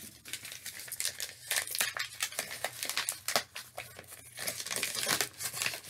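Packaging crinkling and rustling in irregular spurts as it is handled and opened by hand.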